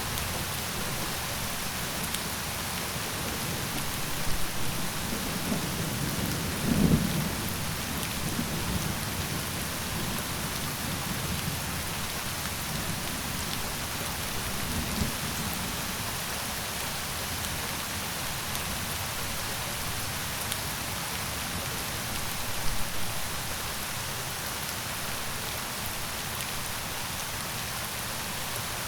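Steady rain falling as an even hiss, with a few brief low rumbles, the strongest about seven seconds in.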